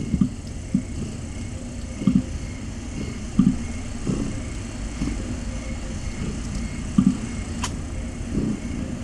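Cat purring close to the microphone: a steady low rumble with louder swells at uneven intervals of about a second. A faint click comes near the end.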